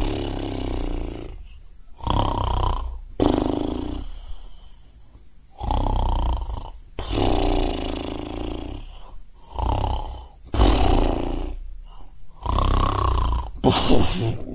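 A man imitating heavy snoring: a run of loud, exaggerated snores, each a second or so long, with short pauses between them.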